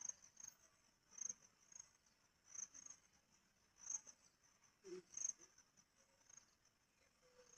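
Faint high-pitched insect trilling, steady with a pulsing beat, over a few soft knocks about every second and a half.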